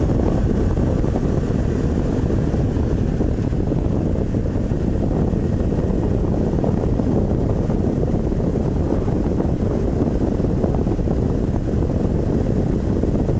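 Steady wind rush over the microphone and the drone of a Honda motorcycle with sidecar cruising on the open road.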